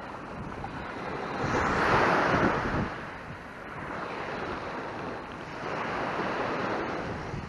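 Sea surf washing onto a beach: a steady wash of waves, with one wave swelling loudest about two seconds in and another rising and fading around six seconds.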